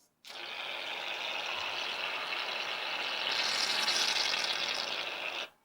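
Shaving-foam aerosol can spraying with a steady hiss, louder about three seconds in and cutting off suddenly near the end. The can is running low and the foam comes out runny.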